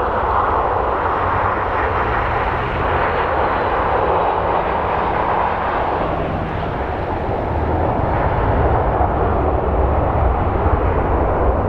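Jet engines of a Boeing 737-700 (CFM56-7B) running, a steady roar over a low rumble that grows a little louder about two-thirds of the way through.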